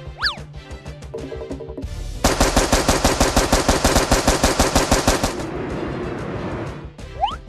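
Rapid machine-gun fire sound effect, about seven shots a second for some three seconds, that trails off into a fading rumble, over rhythmic background music. A short rising zip sounds near the end.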